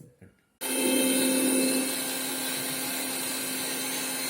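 Electric mixer grinder with its small jar, motor running with a steady whir and hum as the blades grind musumusukkai leaves with garlic and spices. It starts suddenly about half a second in, is a little louder for its first second, and stops abruptly at the end.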